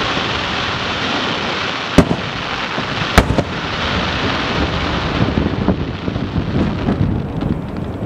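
Aerial firework shells bursting: two sharp bangs a little over a second apart, about two and three seconds in, over a continuous rushing noise.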